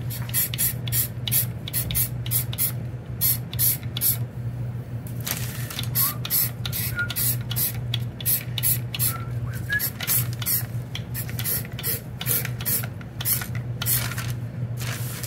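Aerosol can of flat black high-temperature ceramic coating spraying in many short bursts, about two a second, with a pause of a couple of seconds near the start, over a steady low hum.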